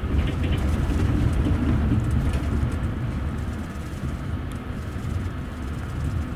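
Passenger train's wheels running on the rails, heard from inside the upper deck of a double-decker coach: a steady low rumble with a few faint clicks and one short, sharp click near the end.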